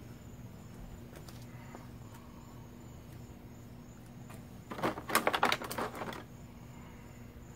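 A quick burst of clicking and rattling for about a second and a half, a little past the middle, as small plastic parts are handled. A steady low hum runs underneath.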